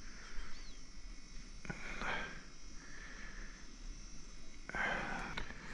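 A person breathing in and out through the nose twice, about three seconds apart, over faint background noise.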